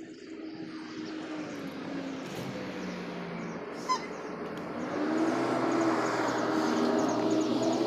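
String trimmer running, its engine pitch shifting a little as it cuts and getting louder about five seconds in, with one sharp tick about four seconds in.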